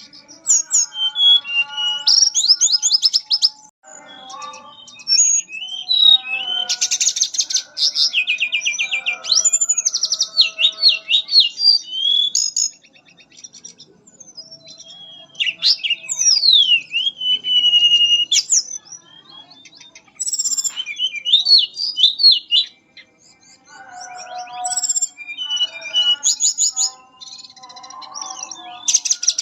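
Mangrove blue flycatcher singing: phrases of clear, fluting whistles, rapid trills and sweeping up-and-down glides, separated by short pauses.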